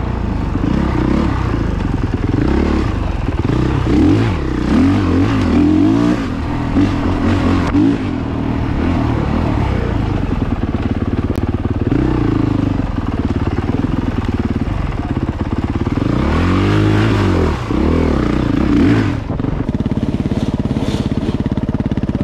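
Dirt bike engine running on a trail ride, its pitch rising and falling over and over as the throttle is opened and closed, with a run of quick revs about three-quarters of the way through.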